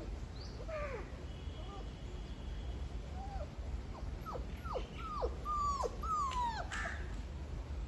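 A Labrador puppy whimpering: a string of short high whines, each falling in pitch, coming close together in the second half. A crow caws once near the end.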